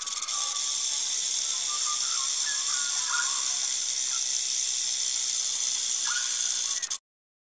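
Cobra hissing: a loud, steady hiss lasting about seven seconds that cuts off suddenly, with a few faint bird chirps beneath it.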